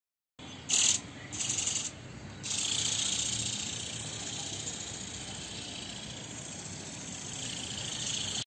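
Remote-control flapping bird's small electric motor and beating wings running. Two short louder bursts come in the first two seconds, then a steady run from about two seconds in.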